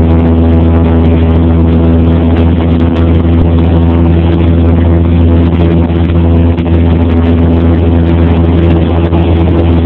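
Cessna 172P's four-cylinder Lycoming engine and propeller heard from inside the cabin in flight: a loud, steady drone that holds one pitch throughout.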